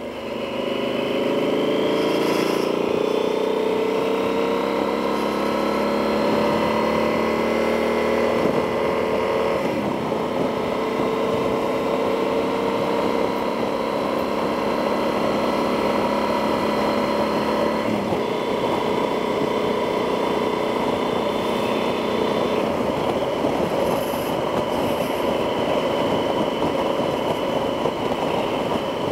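Yamaha XT1200Z Super Tenere's parallel-twin engine on the move, rising in pitch as the bike accelerates over the first few seconds, then holding a steady cruise with a change in note about two-thirds of the way through. Heard from inside the rider's helmet, with wind rush under the engine.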